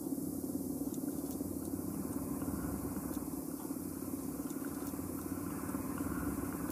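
Electronic composition playing: a steady, dense low drone with faint scattered clicks over it.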